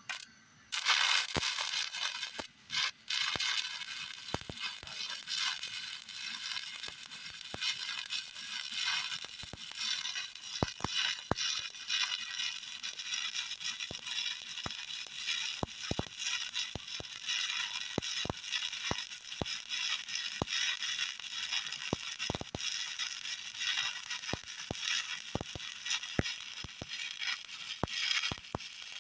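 Stick (shielded metal arc) welding arc burning on a vertical weld: a steady hiss with many sharp pops. The arc strikes about a second in, breaks off briefly twice, then burns steadily.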